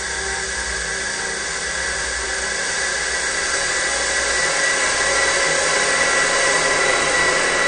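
Cinematic suspense sound effect: a dense, harsh drone like a machine whine that slowly swells louder, with a high steady tone growing brighter toward the end.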